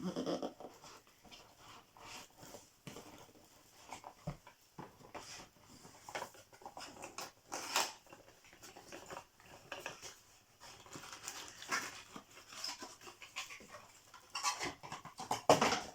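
Cardboard advent calendar door being opened and a wrapped product unwrapped: irregular crinkling, rustling and small knocks, with a louder run of rustling near the end.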